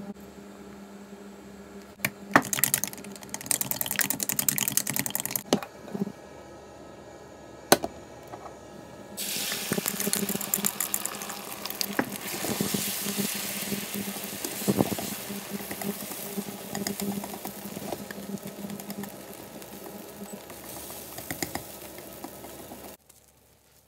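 Chopsticks beating eggs in a glass jug with a quick run of clicks. Then the egg mixture hits a hot frying pan and sizzles, starting suddenly and easing off slowly, with chopsticks tapping and scraping the pan as it is stirred.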